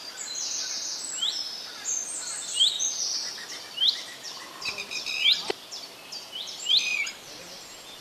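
Red-wattled lapwing giving sharp, repeated alarm calls about once a second, the bird's noisy warning at an intruder close to its nest. A busy chatter of higher, faster bird chirps runs behind, and there is a single click about five and a half seconds in.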